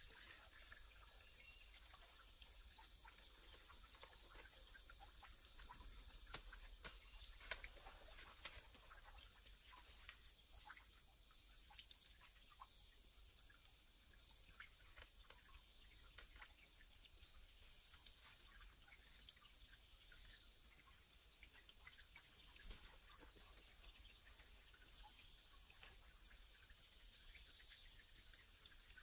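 A small animal's high chirp, repeated steadily about once a second, each call rising then falling in pitch, with faint scattered clicks and crackles underneath.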